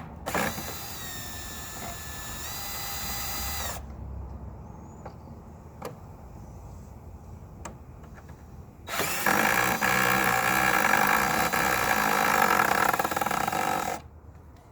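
Power drill running in two bursts, the first about three seconds long and the second, louder one about five seconds, backing screws out of the wooden playground frame. There are a few light clicks in the gap between them.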